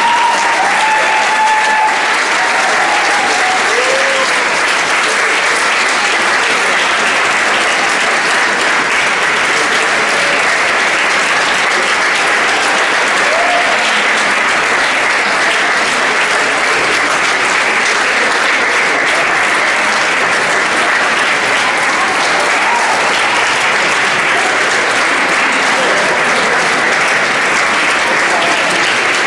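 Audience applauding steadily, with a few brief voices calling out over the clapping near the start.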